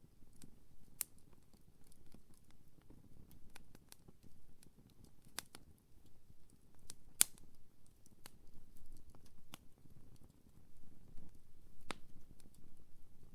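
Wood campfire crackling, with irregular sharp pops over a low steady background; the loudest pop comes about seven seconds in.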